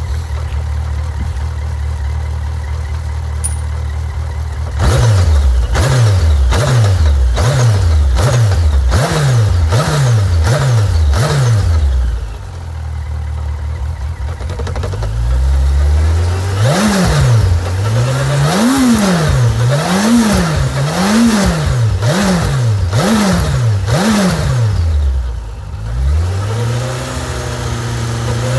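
Suzuki GSX1250FA's inline-four engine idling steadily, then blipped in quick, repeated revs for several seconds, settling briefly and then blipped again in a second run of revs.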